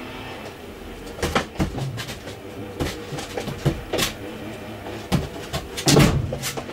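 A dog's paws and claws knocking and scraping on a hollow aluminium case as it steps onto it and shifts about: irregular sharp knocks and clatters, the loudest about six seconds in.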